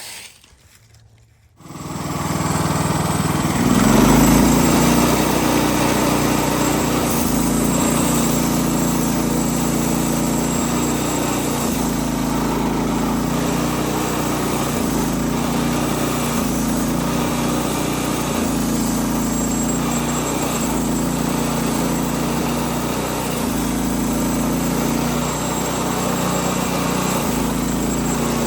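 A small gasoline engine starts about two seconds in, rises briefly about four seconds in, then runs steadily at a fairly even speed.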